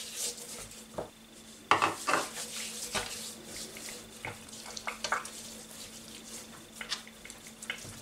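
Light knocks and clinks of a small seasoning bowl and cutting board on the countertop, among the soft sounds of hands rubbing spice mix over a raw duck's skin. A faint steady hum runs underneath.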